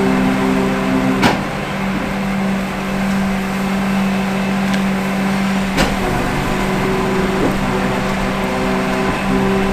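A diesel engine running steadily, with a sharp clunk about a second in and another near the middle.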